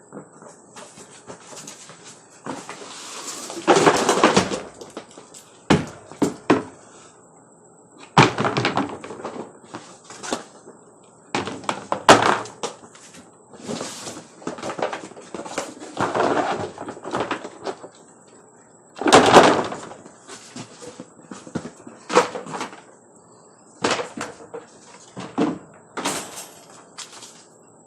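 Hard plastic panels of a Suncast storage box being handled during assembly: irregular knocks, clatter and scraping, with several louder bumps, the loudest about four, twelve and nineteen seconds in.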